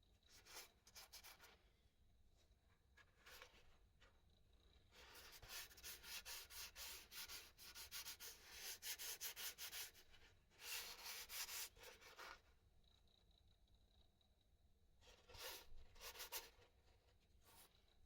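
Hand sanding with an abrasive sheet: quick back-and-forth strokes in bouts of a second or two, with one longer run of about five seconds in the middle.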